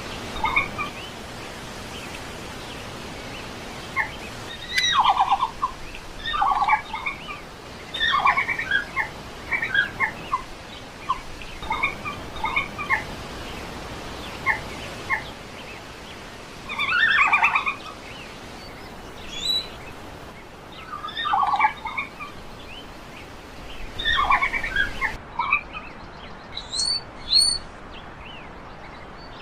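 Red panda calling: bird-like twittering, short rapidly pulsed chirps that come in clusters every second or two, some higher and thinner.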